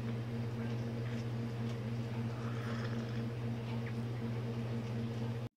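Steady low electrical hum of a running kitchen appliance, with a faint gently pulsing overtone.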